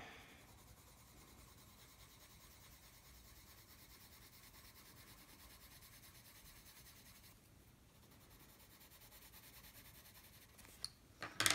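Prismacolor coloured pencil scratching faintly across paper as colour is laid down in short strokes, easing off briefly about two thirds through. A few sharp clicks come near the end.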